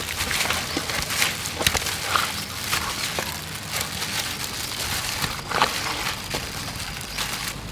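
Pork ribs being mixed and squeezed by gloved hands in a thick chili marinade in an aluminium bowl: irregular squishing with sharp clicks and smacks.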